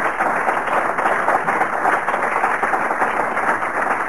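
Audience applauding: a steady clatter of many hands clapping.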